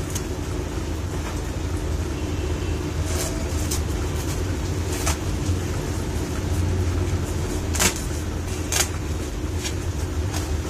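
Steady low hum, with a few short clicks and rustles from a sauna slim belt being wrapped and fastened around the waist.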